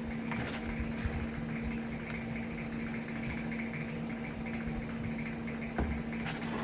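A steady low hum runs throughout, with a few faint soft taps and rustles as crumbly bath bomb mix is filled into a 3D-printed plastic mold and shaken down.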